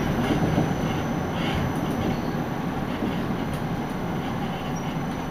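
Siemens ULF B low-floor tram running, heard from inside the car: a steady rumble of wheels and drive with a faint high whine. It grows gradually quieter as the tram slows.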